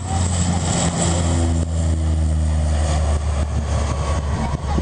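ATR 42 twin-turboprop airliner's engines and propellers running: a steady low drone, with a few higher steady tones held through the middle.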